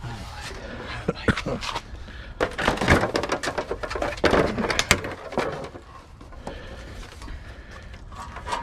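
Irregular knocks, snaps and clatter of plastic and metal parts as a scrap appliance is pried and pulled apart by hand, busiest in bursts about a second in, around three seconds and around four to five seconds.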